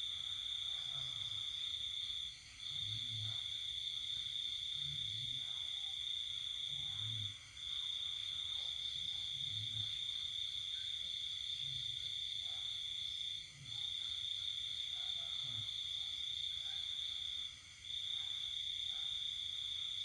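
A cricket trilling in one continuous high, steady note that breaks off briefly four times.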